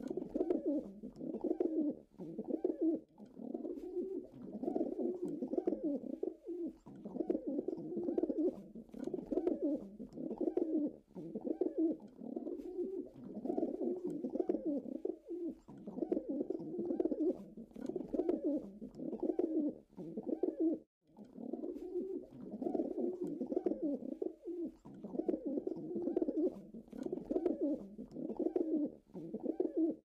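Domestic pigeons cooing, one coo running into the next almost without pause, with a brief break about two-thirds of the way through.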